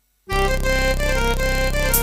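Yamaha PSR-I455 keyboard playing a melody on a harmonium-and-organ dual voice over a steady bass line, starting suddenly about a quarter second in.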